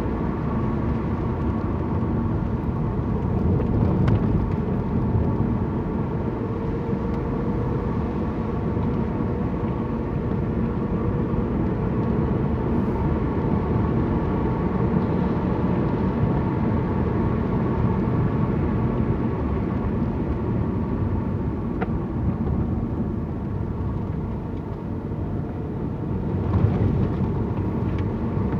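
Car driving along a road, heard from inside the cabin: steady engine hum and tyre rumble.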